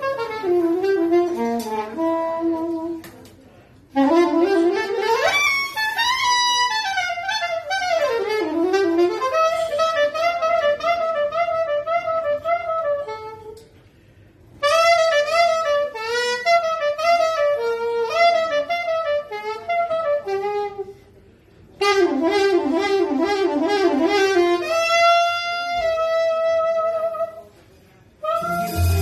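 Soprano saxophone playing jazz melody phrases, with bends and a rising glide, over quiet upright bass and guitar backing; the phrases break off in several brief pauses.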